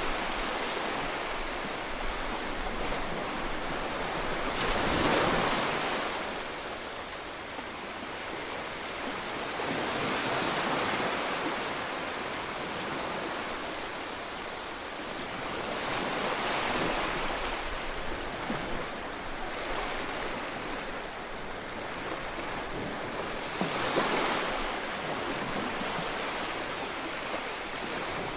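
Gentle sea waves breaking and washing up a sandy beach, a steady hiss of surf that swells louder four times, every five to seven seconds.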